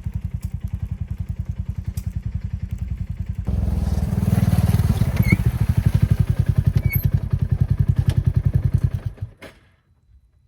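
An engine running with a fast, even chug, getting louder about three and a half seconds in and stopping about nine seconds in.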